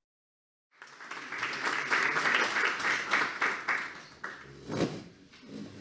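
Audience applause, starting about a second in and dying away after about three seconds.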